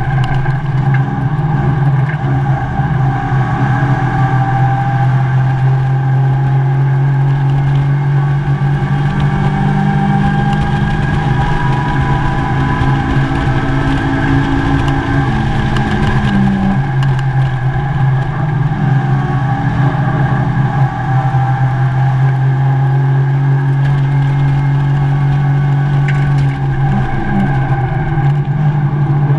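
Mazda MX-5 race car's inline-four engine heard from inside the cockpit at race pace. Its pitch rises as the revs climb and drops back at the gear changes, over a constant low drone.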